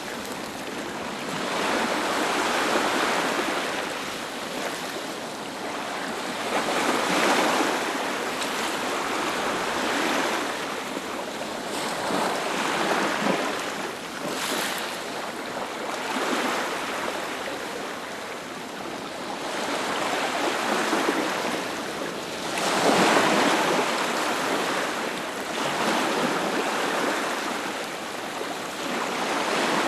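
Sea waves breaking on a beach, a continuous wash of surf that swells and falls back every few seconds.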